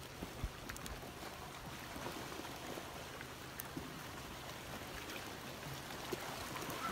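Flash-flood debris flow, muddy water carrying a mat of logs and branches down a wash: a steady rushing wash of water and mud, with a few faint clicks of knocking wood.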